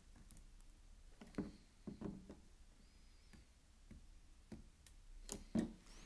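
Water-pump pliers squeezing a headlight lens onto its housing, making a handful of irregular clicks and knocks of metal on hard plastic. The loudest knock comes near the end.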